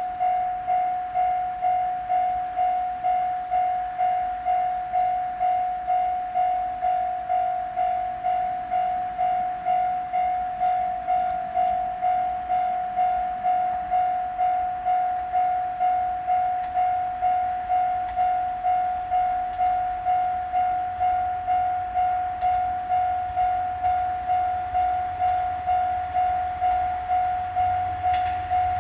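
Japanese railway level-crossing warning bell ringing steadily, a repeated electronic ding at just under two strikes a second, signalling that a train is approaching. A low rumble builds under it over the last several seconds.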